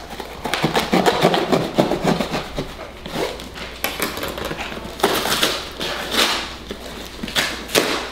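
Cardboard shipping box being unsealed: a knife scraping along the packing-tape seam, then the cardboard flaps pulled open with irregular crinkling and tearing, with a few sharp clicks.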